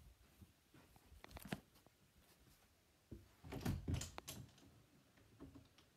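Handling noise from a tablet being carried and moved about: scattered soft knocks and rustles, with a brief cluster of louder knocks and rubbing about three to four seconds in.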